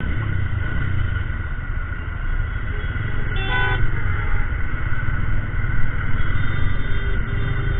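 Single-cylinder motorcycle engine running at low speed amid steady street-traffic rumble. A vehicle horn honks once briefly about three and a half seconds in, and a fainter horn tone sounds near the end.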